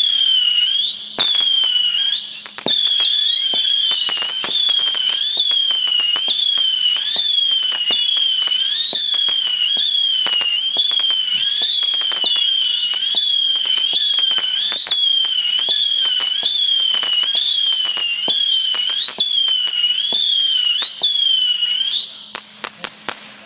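Magvalue Cluster Missiles firework cake firing its 25 whistling missiles in quick succession, about one a second, each whistle gliding in pitch and overlapping the next. Sharp crackling cracks run through the whistles as the missiles burst. Near the end the whistles stop and a few last cracks remain.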